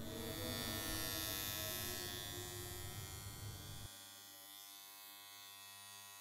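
Electric hair clippers buzzing steadily. About four seconds in the buzz drops to a quieter, thinner sound.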